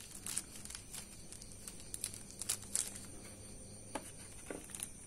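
Small plastic zip bag crinkling in the fingers while tiny parts are picked out of it, with several short crackles and a couple of light clicks near the end as small metal parts are handled.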